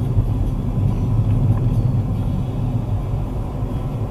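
A car driving along, heard from inside its cabin: a steady low rumble of engine and road noise.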